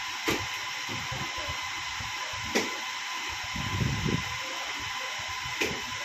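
HP ProLiant DL380 Gen10 server's cooling fans running steadily after power-on, a constant rushing hiss with a faint whine. Three short clicks come about a second apart, halfway through and near the end, with some low knocks in between.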